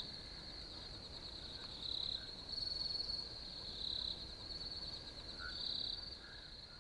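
Insects trilling in a steady high chorus, like crickets at night, fading out near the end.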